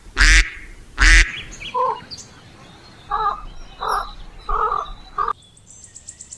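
Ducks quacking: two loud quacks, then a string of about five softer quacks, roughly one a second. Near the end a high, rapid, insect-like chirring starts.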